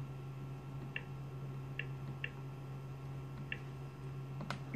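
Short high electronic blips from a TV's YouTube app menu, one each time the selection moves to the next video tile, four of them at uneven spacing, over a steady low hum. A couple of sharp clicks near the end.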